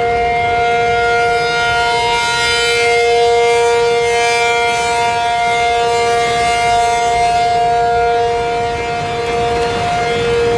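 ACA Penetrator 50 outdoor warning siren sounding its steady alert signal for a tornado warning. Two tones are held together with no rise or fall in pitch, swelling gently in loudness.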